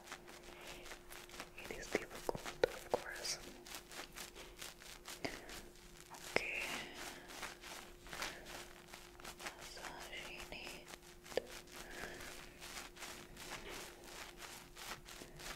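Fingertips rubbing, brushing and scratching right against a microphone in quick, continuous strokes, with a few sharper taps in the first few seconds. The sound stands in for hands touching and inspecting hair. A faint steady hum runs underneath.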